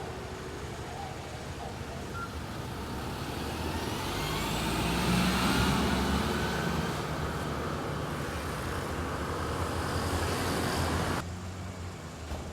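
Fire truck driving off: its engine runs and tyre noise swells to a peak about five seconds in, with a faint whine rising in pitch. The sound drops off abruptly near the end, leaving a low hum.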